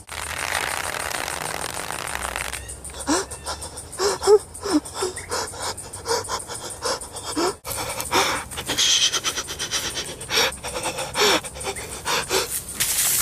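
Exaggerated human crying sound effect: a long noisy breath for about the first two and a half seconds, then a rapid, irregular string of short sobbing gasps and whimpers.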